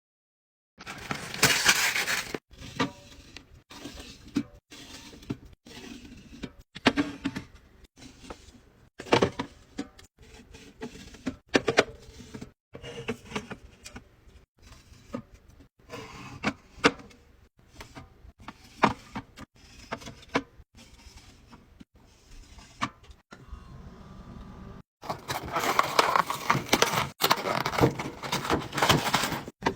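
Drink bottles and cans handled and set into a fridge: a string of sharp clicks and knocks a second or two apart, with a longer noisy stretch about a second in and again near the end.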